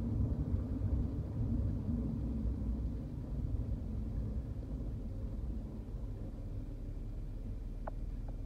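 Car driving, heard from inside the cabin: a low rumble of engine and tyre noise that eases after about three seconds as the car slows to a stop, leaving a quieter steady hum. Two short ticks near the end.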